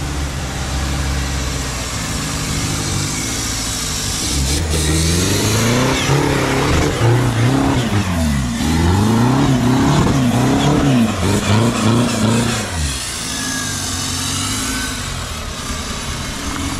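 Off-road trial buggy's engine revving hard in repeated rises and falls as it claws up a steep muddy bank, loudest in the middle; it runs more steadily before about four seconds in and after about thirteen seconds in.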